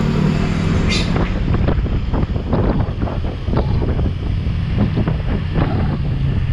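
Honda Vario 125 scooter's engine running at road speed while riding, with wind buffeting the microphone.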